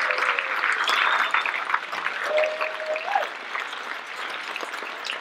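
Audience applauding, the clapping strongest in the first two seconds and thinning out toward the end.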